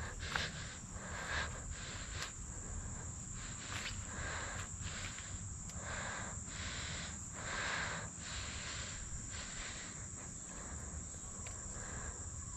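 A steady, high-pitched drone of insects such as crickets, with soft, scattered rustles underneath.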